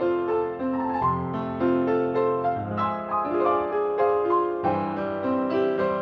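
Solo piano playing a ballet barre accompaniment: a melody over chords, notes changing in a steady, even pulse.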